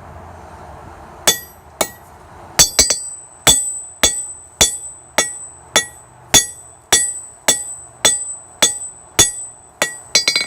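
Hand hammer striking a hot titanium bar on an anvil in a forge-welding attempt: steady blows, about two a second, starting about a second in, each leaving a short high ring.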